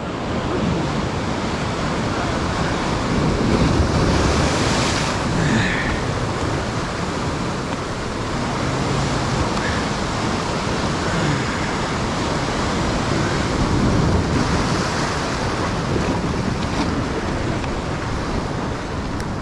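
Sea surf washing against a rocky shore, a steady rush that swells louder about four seconds in and again about fourteen seconds in, with wind on the microphone.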